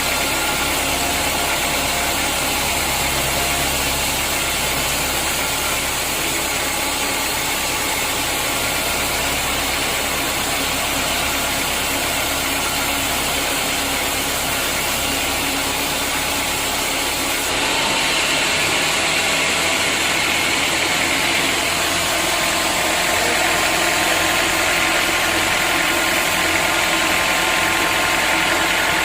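Sawmill machinery running steadily, a dense mechanical noise. About two-thirds of the way through it gets louder, with a harsher high hiss.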